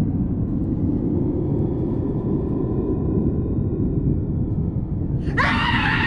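A steady deep rumble, then near the end a high scream that rises briefly in pitch and then holds.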